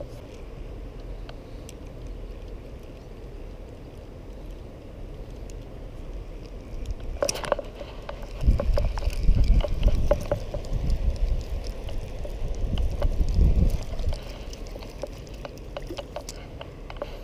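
Wind rumbling on a body-worn camera's microphone, with light knocks and rustling of handling; a sharp knock near the middle, then the rumble grows loud for about five seconds before easing.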